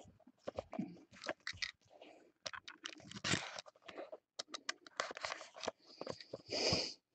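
Small cardboard trading-card boxes handled by hand on a desk: a run of light taps, clicks and rustles as they are picked up and set down, with a longer scraping rub near the end.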